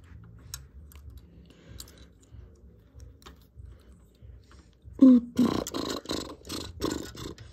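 Light clicks of plastic LEGO bricks being handled. About five seconds in, a loud rasping rattle of rapid pulses, about four a second, runs for some two seconds while the toy crane arm is worked.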